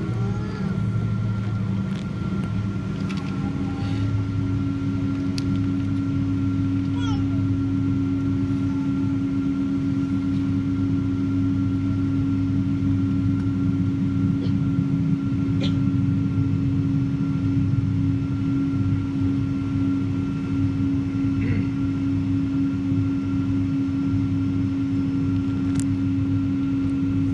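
Airliner cabin noise during taxi: the jet engines' steady drone with a low hum and a steady whine. A steadier, louder tone joins about three seconds in.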